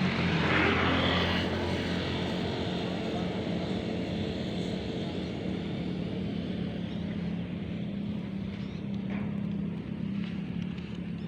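An engine running steadily with an even hum, with a louder rushing noise over it in the first second or so.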